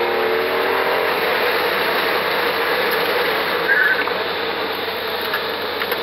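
Hyundai Sonata V6 on track, heard from inside the cabin: the engine note climbs under acceleration and fades about a second in as the revs drop, leaving steady road and tyre noise. There is a brief sharper sound about two-thirds of the way through as the car brakes into a corner.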